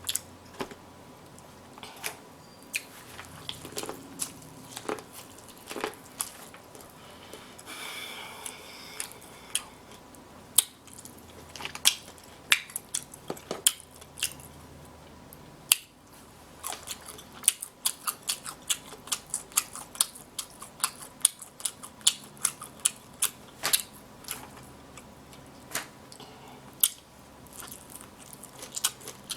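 Close-up eating sounds of a seafood boil: chewing and lip smacking, with many sharp wet clicks that come thickest past the middle.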